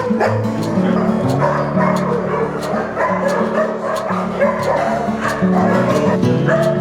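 Shelter dogs barking and yapping, many at once, over background music.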